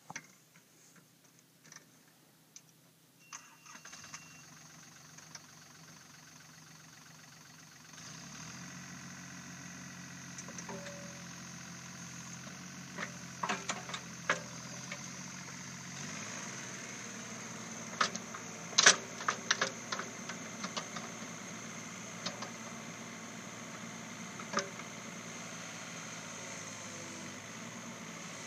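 A Takeuchi TB125 mini excavator's diesel engine is started about eight seconds in after a short beep, then runs at idle. About halfway through its speed rises, and sharp metal clanks come from the machine as it is operated.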